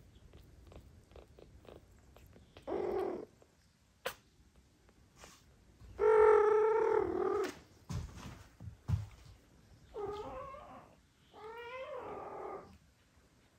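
A cat meowing four times in drawn-out calls. The second call, about six seconds in, is the longest and loudest. A few faint clicks and knocks fall between the calls.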